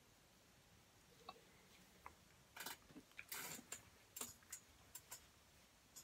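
Near silence with scattered faint clicks and a few short rustles, the most noticeable of them about two and a half to four seconds in: small movement and handling noises.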